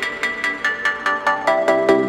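Background electronic music: a stripped-down passage of quick, evenly repeated synth notes with no bass, growing louder toward the end.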